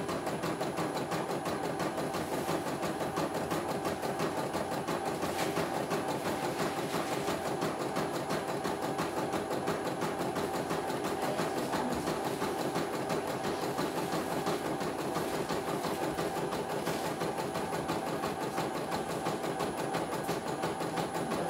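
CNY computerized embroidery machine stitching a design: a steady, fast rattle of needle strokes. The machine is on a test run that it finishes smoothly, without any trouble.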